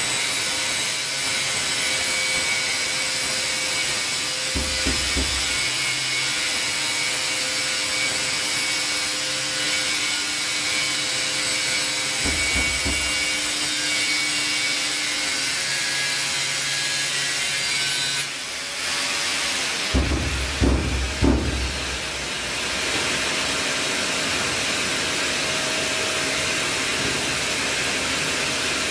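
Angle grinder with a 3D-printed 45° guide grinding a bevel along the edge of a ceramic tile, a steady loud grinding hiss, with a dust-extraction vacuum hose attached. The sound changes after about 18 seconds, a few knocks come about 20 seconds in as the tile is handled, and a steady hiss carries on.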